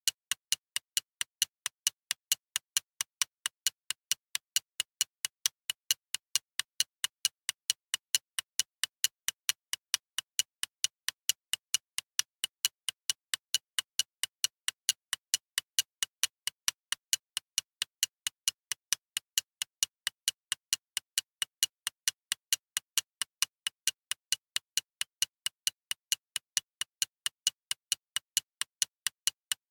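Mechanical alarm clock ticking: sharp, even, high-pitched metallic ticks, several a second, in a steady rhythm.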